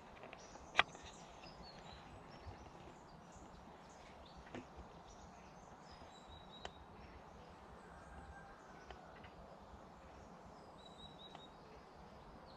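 Faint woodland ambience with a few short, high bird chirps, broken by one sharp click about a second in and a couple of softer ticks later.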